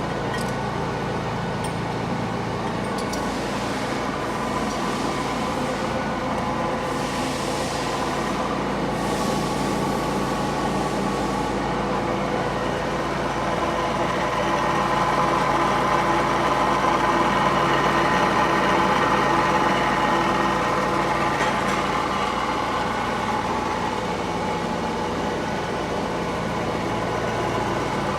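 Pratt & Whitney thread milling machine running under power: a steady mechanical hum made of several held tones, growing a little louder for several seconds in the middle.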